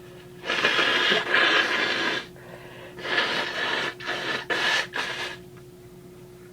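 A person's loud, breathy bursts through the nose and mouth while a sneeze builds: two long ones in the first two seconds, then four shorter, quicker ones.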